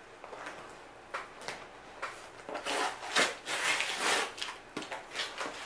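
Cardboard shipping box being torn open by hand: a few short rips and scrapes, then a louder run of tearing and rustling in the middle as the flaps are pulled apart.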